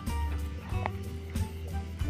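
Background music: held instrumental notes over a steady, repeating bass beat.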